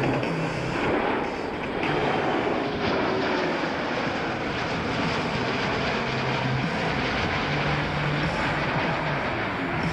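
Boeing C-17 Globemaster III flying past, the steady rushing noise of its four Pratt & Whitney F117 turbofan engines, with no sharp changes through the pass.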